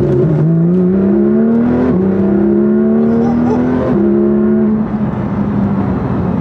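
Porsche 911 GT3 RS (991.1) naturally aspirated flat-six breathing through a Sharkwerks aftermarket exhaust, heard from inside the cabin. The engine pulls up through the revs, with quick upshifts about two and about four seconds in, then holds a steady cruise; its note is a little bit more throaty.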